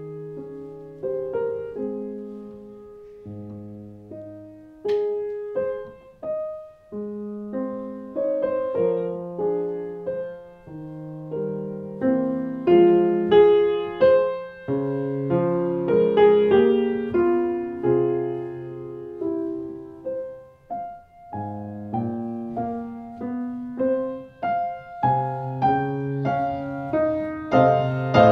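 Grand piano played solo, a classical piece of melody over chords, one note after another, growing from soft to loud toward the end.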